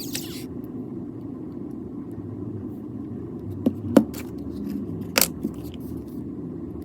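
A few sharp clicks of small repair tools and screws against a phone's plastic frame during reassembly, two close together near the middle and two more a little later, over a steady low hum.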